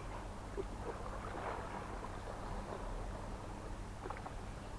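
Seaside outdoor ambience: a steady low hum under wind and water noise, with a few faint brief sounds.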